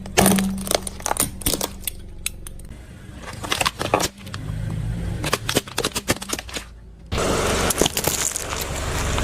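Plastic crunch toys cracking and snapping under a car tyre: a run of sharp cracks and pops over a low rumble. About seven seconds in, a denser, louder crunching sets in.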